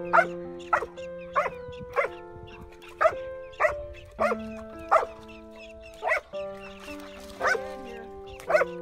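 A dog barking repeatedly, about ten short barks spaced a half second to a second apart, at a porcupine. Background music with long held notes plays under it.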